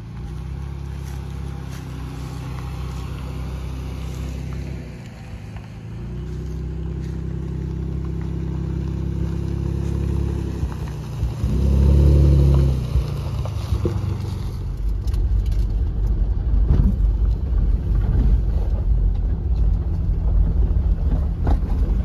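Motor vehicle engine running with road noise: a steady hum with a brief dip, a loud surge about halfway through, then a rougher, uneven rumble with scattered knocks.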